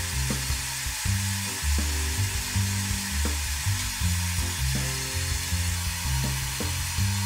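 Steady airy rush of a pet blow dryer blowing over the coat, with background music carrying a bass line underneath.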